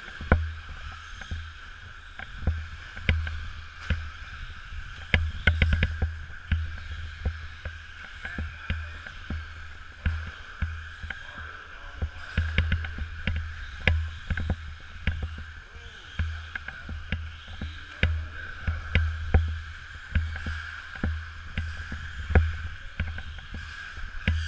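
Radio-controlled short course cars racing on a dirt track: a steady, hissing whine from the pack of cars, broken by frequent clicks and knocks as they land and bump. Under it all is a heavy low rumble that swells and falls irregularly, the loudest part of the sound.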